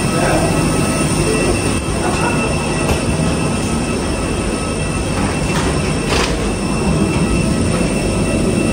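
Loud, steady whine and rumble of aircraft and gate machinery heard from inside a jet bridge, with a couple of short hissing swishes about five and six seconds in.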